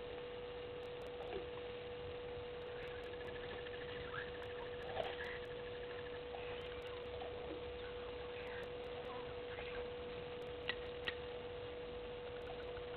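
Outdoor bush ambience under a steady high hum, with faint scattered chirps and a rattling trill lasting a few seconds. Two sharp snaps come in quick succession about eleven seconds in.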